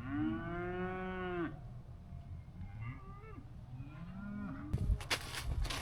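Cattle mooing: one long moo that rises, holds and falls for about a second and a half, then a few fainter moos. Short knocks and rustling come near the end.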